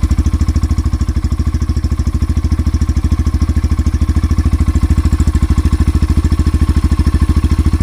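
Yamaha FZ S FI V3's 149 cc single-cylinder engine idling, its exhaust giving a steady, even beat of quick regular pulses.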